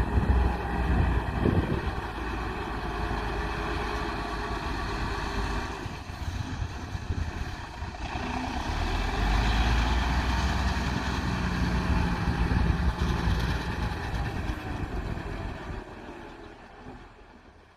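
Heavy construction machine's diesel engine running, its level easing and swelling again, then fading away over the last couple of seconds.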